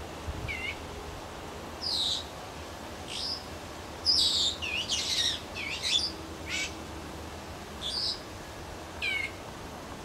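Parakeets giving short, harsh, high screeching calls, about a dozen in all, bunched most closely together about four to six seconds in.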